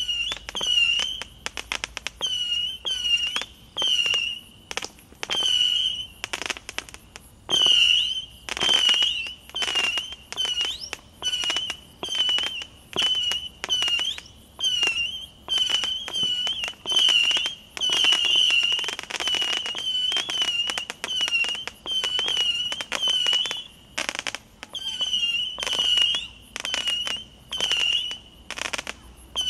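Consumer firework battery firing whistling shots in quick succession, about two a second: each shot a short wavering whistle with sharp cracks.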